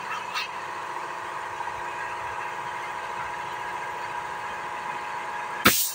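Air compressor running steadily with a whine, supplying a paint spray gun. Just before the end a loud hiss starts abruptly as the spray gun is triggered.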